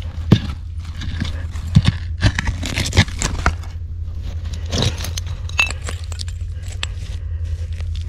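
Digging by hand through soil and buried scrap metal: irregular scrapes with sharp clicks and knocks as the tool hits steel and other junk, over a steady low hum.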